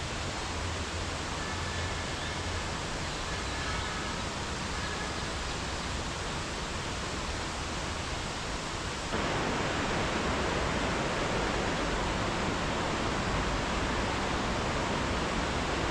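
Steady outdoor rushing noise, which steps up louder and brighter about nine seconds in.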